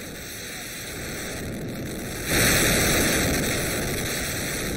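Explosive implosion of the two Supertech high-rise towers, charged with 3,700 kg of explosives. About two seconds in, a sudden loud rush of noise breaks over a steady windy background as the charges fire and the towers come down, and it then slowly dies away.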